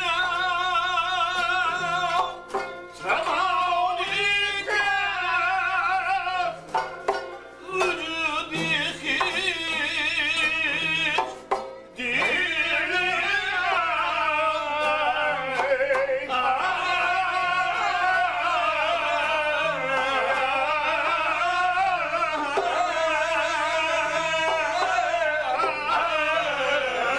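A man singing in a wavering, ornamented style, accompanied by a plucked long-necked lute and a hand-beaten frame drum. The singing comes in short phrases with brief breaks at first, then runs on unbroken from about halfway through.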